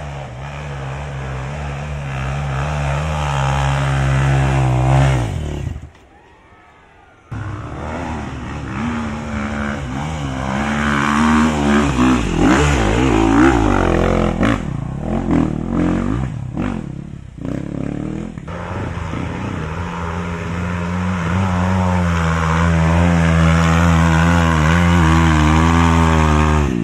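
Dirt bike engines revving hard under load on a steep, muddy hill climb, the revs rising and falling as the riders work the throttle. The sound drops away sharply for over a second about six seconds in, then returns, and ends on a long stretch of steady high revs.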